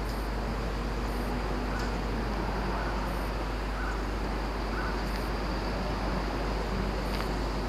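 Steady background rumble and low hum of an elevated railway station platform, with a few faint short high chirps in the middle. No train passes: the level holds even throughout.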